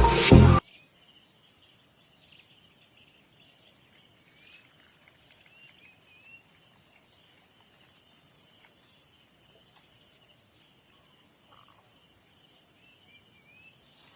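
Background dance music cuts off suddenly about half a second in. It leaves a steady high-pitched chorus of insects, with faint short chirps now and then.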